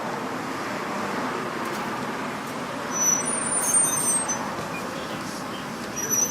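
Steady road traffic noise, with brief high-pitched squeals about three seconds in and again near the end.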